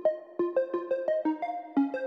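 Background music: a light melody of quick, evenly spaced notes, about six a second.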